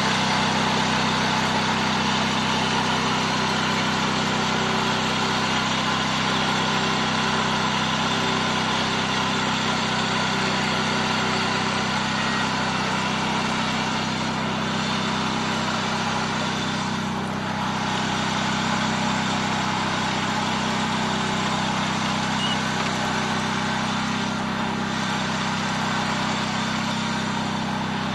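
Honda riding lawn tractor's two-cylinder liquid-cooled engine running steadily as the tractor drives along, a constant even engine note.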